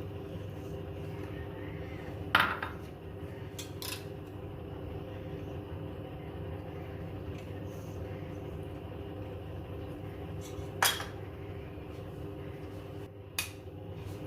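A metal spoon clinking against a cooking pot and bowl a few times, sharpest about two seconds in and again near eleven seconds, over a steady low hum.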